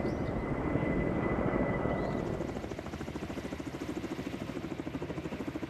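Helicopter rotor heard at a distance, a steady rumble that becomes a rapid, even beat from about halfway in.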